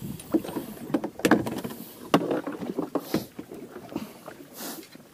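Irregular knocks and clatter aboard a small fishing boat, with a brief hiss near the end.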